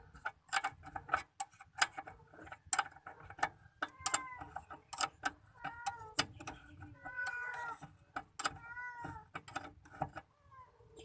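Hand tools clicking and clinking against metal, irregularly and several times a second, during disc brake caliper work. From about four seconds in, four short high squeals come in, each rising and falling.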